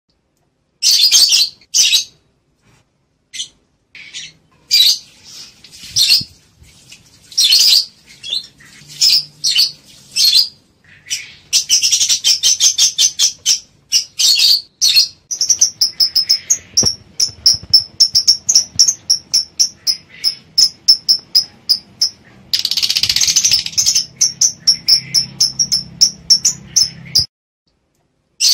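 Lovebirds in breeding condition chattering: many short, high, shrill chirps and squeaks, with long stretches of fast, near-identical repeated notes. The calls break off abruptly into silence several times.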